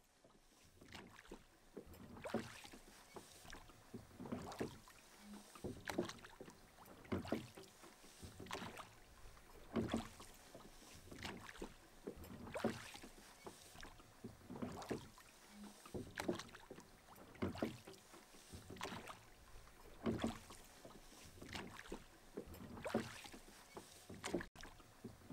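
Oars of a rowing boat dipping and pulling through calm water, a steady stroke about every second and a half.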